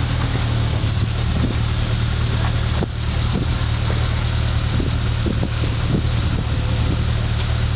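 An off-road vehicle's engine idling steadily close by, with wind rumbling on the microphone and a few soft knocks midway.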